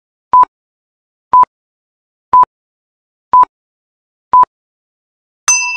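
Countdown timer sound effect: five short electronic beeps, one each second, then a bell-like ding near the end that rings on, marking time up.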